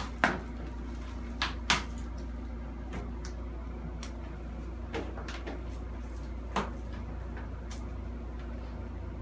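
Kittens playing on a hard floor: a few sharp light knocks and clicks, the loudest near the start and two close together about a second and a half in, over a steady low hum.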